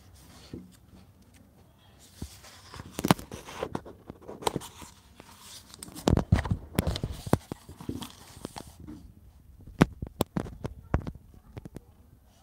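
Pages of a paperback book being turned and handled: a run of papery rustles, swishes and sharp page snaps, starting about two seconds in and dying away near the end.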